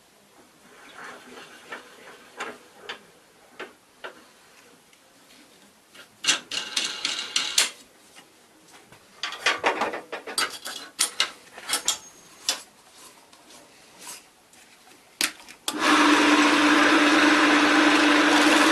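Irregular scraping, rubbing and knocking as wood and tools are handled. A little before the end a power tool's motor starts abruptly and runs at a steady, loud level with a constant hum.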